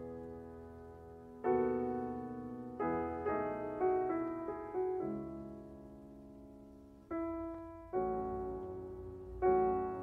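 Slow, quiet classical solo piano music: single notes and chords struck at an unhurried pace, each left to ring and fade before the next.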